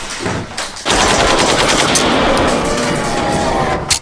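Rapid automatic gunfire, machine-gun style. A short burst comes first, then a long unbroken burst starts about a second in and cuts off suddenly just before the end.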